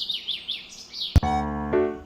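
A bird chirping in a quick, descending run of high twitters, cut off about a second in by a sharp click as background music with sustained chords starts.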